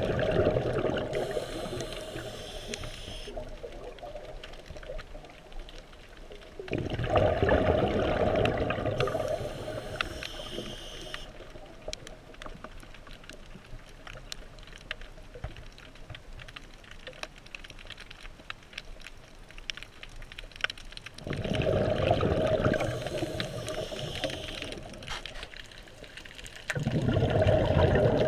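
Scuba diver breathing through a regulator, heard underwater: four loud rushes of exhaled bubbles several seconds apart, with a thinner hiss between them, over a faint steady crackle.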